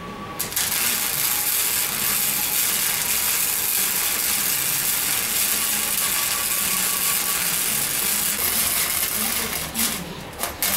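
Wire-feed welder arc crackling steadily while welding steel. The arc strikes about half a second in, breaks off briefly near the end, then strikes again.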